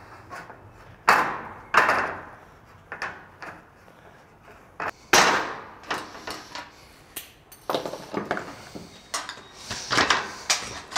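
Aviation snips cutting through sheet-metal flashing trim in a series of sharp snips. The loudest come about a second in, just before two seconds, and about five seconds in.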